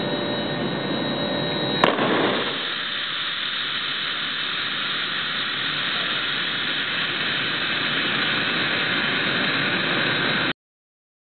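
Pressurised plastic soda-bottle rocket bursting in a pressure test, one sharp bang about two seconds in: the bottle has failed under air pressure. A steady rushing noise runs underneath before and after, then cuts off suddenly near the end.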